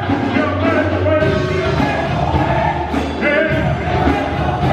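Gospel choir singing live, with a male lead voice on a handheld microphone and a steady low bass under the voices.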